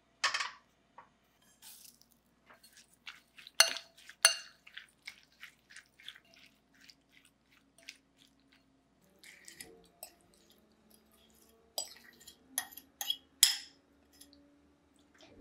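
Irregular light clicks and taps of kitchenware: sesame seeds shaken in a nonstick frying pan, then a fork clinking against a glass bowl as it mixes sliced cucumber.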